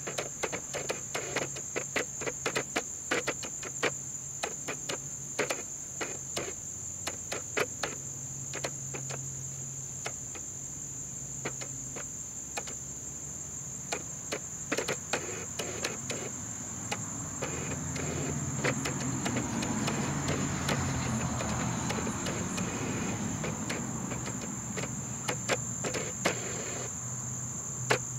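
Sony SLT-A57 camera's control dial being turned to work the digital zoom: runs of quick sharp clicks with short pauses between them. Under the clicks, a steady high-pitched tone.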